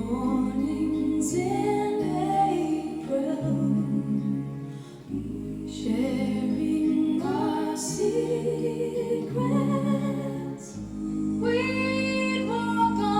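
Recorded music, a sung vocal over instrumental accompaniment, played back through a Meracus Onesta hi-fi amplifier and loudspeakers.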